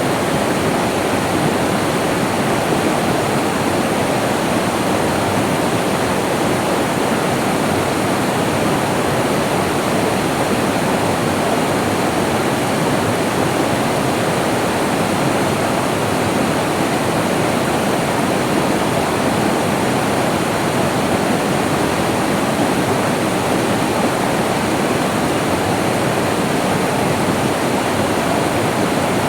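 Running water, a steady even rush with no separate splashes or other sounds standing out.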